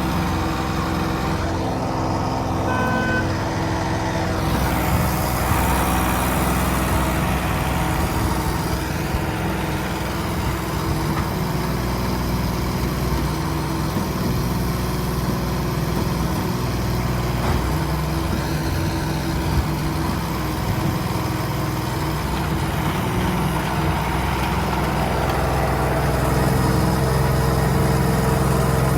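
Diesel engine running steadily at idle, with a hiss joining it about four seconds in.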